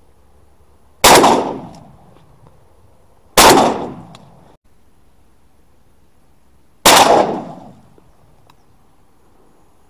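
Three shotgun shots, each a sharp blast with a rolling echo that dies away over about a second. The first two come a little over two seconds apart, and the second's echo is cut off abruptly; the third follows about three seconds later.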